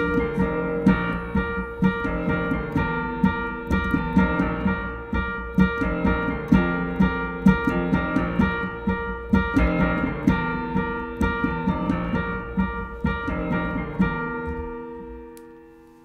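Electric stage piano playing a closing solo passage of chords and repeated notes at a steady pulse, ending on a held chord that fades away near the end.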